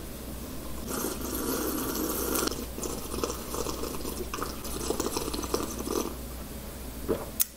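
A person sipping a drink from a glass mug, in a few noisy stretches of sipping and swallowing, over a low steady hum.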